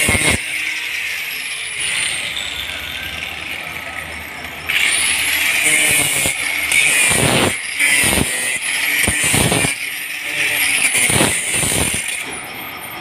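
Electric angle grinder with a round wheel working a steel pipe. The motor's high whine rises and falls as the wheel is pressed on and lifted off the metal, with brief knocks of contact. The grinding gets much louder about five seconds in and eases off near the end.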